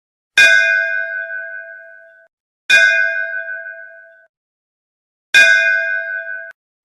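Hindu temple bell struck three times, about two and a half seconds apart. Each strike rings with a clear metallic tone that fades over about two seconds, and the third ring is cut off suddenly.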